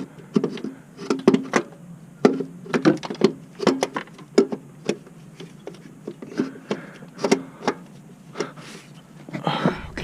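Irregular metallic knocks and clanks of a replacement starter motor being wiggled and pushed into its mounting in a Kia Forte engine bay, some with a short ring.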